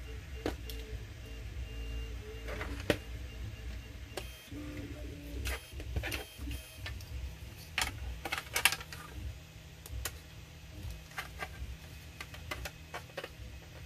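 Irregular clicks and knocks of hard plastic Nerf blaster shell parts being handled, with a small screwdriver working at the shell near the end. A low steady hum runs underneath.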